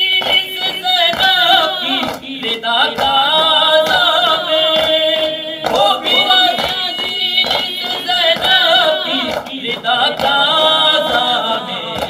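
A man singing an Urdu noha (mourning lament) unaccompanied into a microphone, in long wavering held notes, with steady rhythmic chest-beating (matam) by the mourners keeping time.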